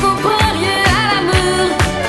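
Pop-style background music with a steady kick-drum beat, about two beats a second, and a singing melody line.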